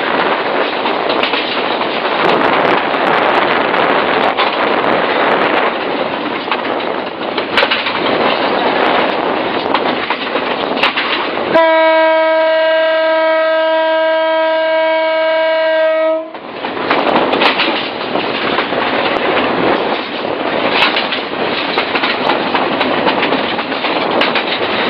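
Bangladesh Railway metre-gauge diesel locomotive running at speed, with steady wheel-and-rail noise. About halfway through, the locomotive's horn sounds one long, steady single-note blast of about four and a half seconds, then the running noise returns.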